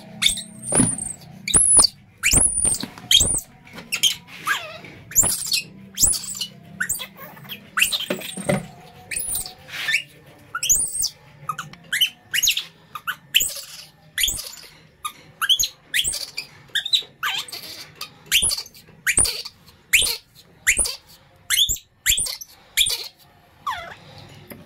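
Baby macaque crying with repeated short, high-pitched squeals, about one or two a second, as a hungry infant waiting for its food.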